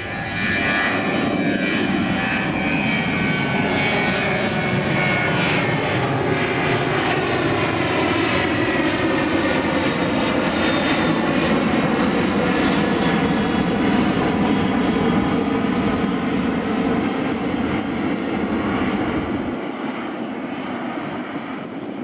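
Boeing 737 twin-turbofan airliner climbing out after take-off: a loud, steady jet roar with slowly falling tones sweeping through it, easing off slightly near the end as it moves away.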